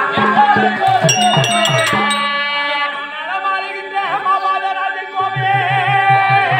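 Therukoothu stage music: a voice singing a wavering melody over steady held accompanying notes. Quick hand-drum strokes sound near the start and again from about five seconds in, and a few small-cymbal strikes ring out between one and two seconds in.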